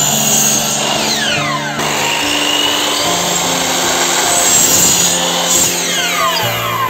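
Electric compound miter saw running and cutting through a wooden strip. Its pitch falls as the blade winds down, once about a second in and again near the end.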